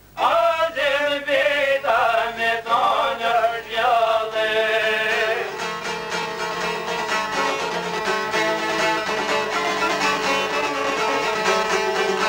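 A man singing an Albanian folk song to two plucked long-necked lutes (çifteli). About five seconds in the voice stops and the lutes carry on alone, plucking quick runs of notes.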